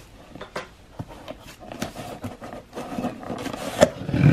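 Cardboard shipping box being pulled open by hand: scratchy clicks, scraping and crinkling of tape and flaps. The rustling gets louder and fuller near the end.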